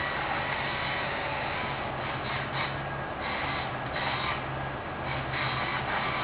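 Engine-driven tree-service machinery running steadily, with a constant low hum and brief, harsher surges about once a second.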